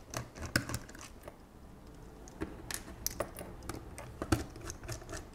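Light, irregular clicks and taps of a small Phillips screwdriver and fingers handling a pocket computer's case as its rear screws are taken out.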